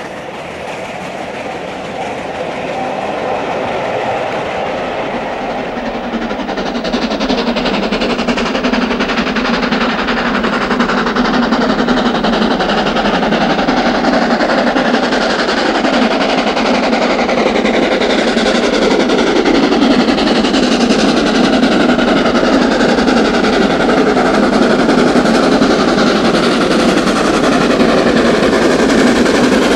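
Steam trains climbing the bank. At first the coaches of one train are heard drawing away. Then an LMS Stanier 8F 2-8-0, No. 48151, approaches working hard, its exhaust and running noise growing steadily louder as it nears.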